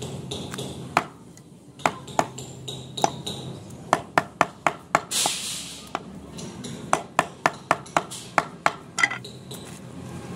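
Heavy butcher's cleaver chopping goat meat on a wooden log block: sharp chops with a slight metallic ring, a few spaced strokes at first, then quick runs of about three or four a second. A brief scraping noise just past the middle.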